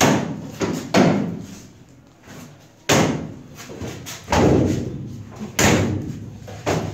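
Aluminium-framed acrylic kitchen cabinet doors being shut one after another: a series of about seven sharp thuds at uneven intervals, each with a brief fading ring.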